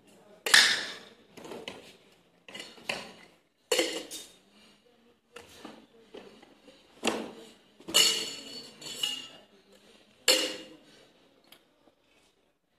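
Stainless-steel cocktail shaker tins clanking and clinking against each other as they are tossed and caught in flair bartending, about ten irregularly spaced strikes, each with a brief metallic ring.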